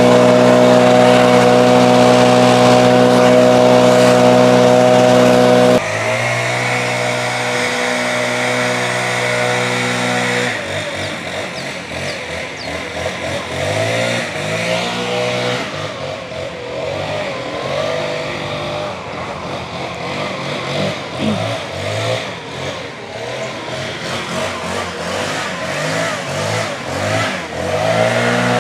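Gas backpack leaf blower running steadily at high throttle. About six seconds in it drops in level, and from about ten seconds in the throttle is worked up and down, its pitch rising and falling again and again.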